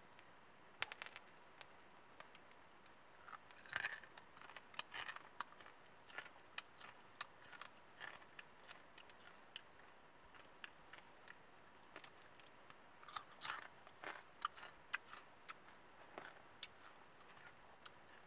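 Eating grilled chicken: chewing and crunching on the crisp meat and skin, with pieces torn apart by hand. It comes as irregular small crisp crunches and clicks, busiest about four seconds in and again around thirteen to fifteen seconds.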